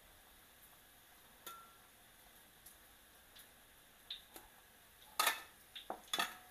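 Battered pork belly pieces deep-frying in oil in a wok over a low flame: a faint sizzle with scattered sharp pops and clicks, the loudest a little after five seconds in and again around six seconds.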